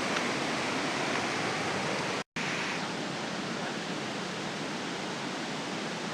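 Steady rush of a waterfall, a dense even hiss of falling water. It drops out completely for an instant about two seconds in, then goes on slightly quieter.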